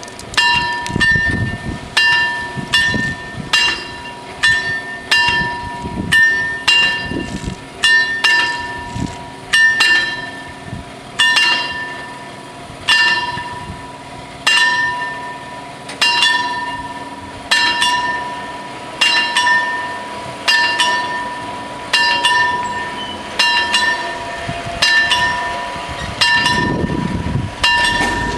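Two electric level-crossing warning bells ringing steadily, their strokes coming roughly once a second with a ringing tone that carries on between strokes, sounding while the barriers are lowered ahead of an approaching train.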